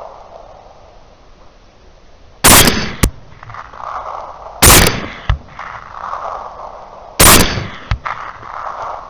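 Three rifle shots about two and a half seconds apart, each followed roughly half a second later by a shorter, sharp crack.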